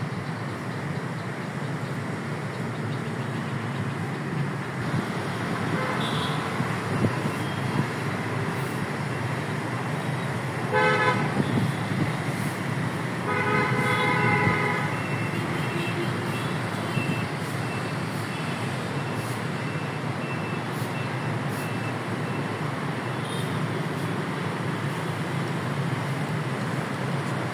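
Steady background traffic noise, with a vehicle horn sounding twice: a quick stutter of short toots about eleven seconds in, then a longer honk a couple of seconds later.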